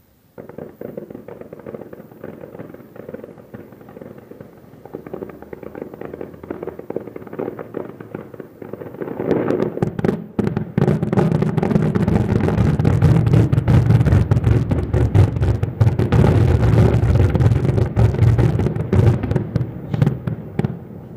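Fireworks finale traca: a dense, rapid string of firecracker bangs starts abruptly. About nine seconds in it swells into a much louder, continuous barrage of deep booms and cracks, and it thins out near the end.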